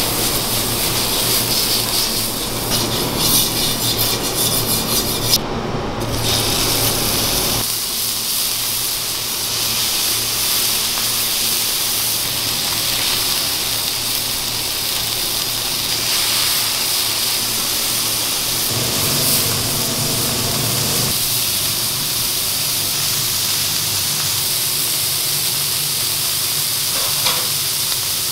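Hot steel flat-top griddle sizzling, first with water steaming off its surface, then under rows of burger patties: a steady hiss, with the sound changing at a cut a few seconds in.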